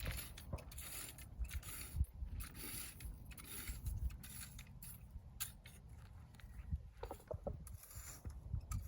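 Dry weeds and dirt being scraped up during backyard weed clearing, in a run of short, rough strokes about one or two a second.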